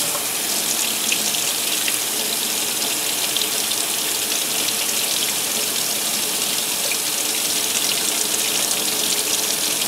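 Tap water running in a steady stream into a stainless steel sink, splashing over a board and fingers held under it.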